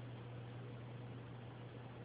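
Steady low hum under an even hiss, with no distinct laps, clicks or splashes standing out.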